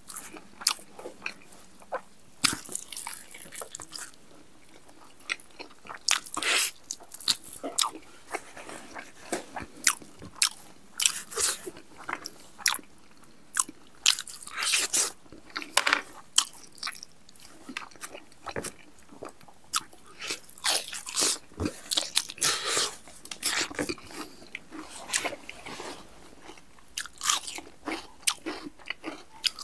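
Close-miked chewing and biting of crunchy pieces of spicy buffalo meat eaten by hand, with many irregular crunches and mouth sounds.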